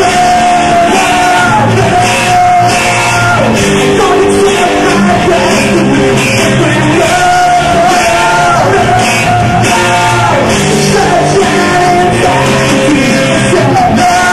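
Rock band playing with a sung lead vocal, the singer holding long notes that slide up and down in pitch over electric guitar, bass and drums.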